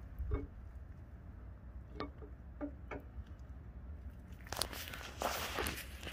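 A steel camshaft being slid by hand into a Ford 5.0 V8 block, its lobes and journals knocking lightly against the cam bearings in a few scattered clicks. From about four and a half seconds the clicking turns into a denser run of scraping and rattling.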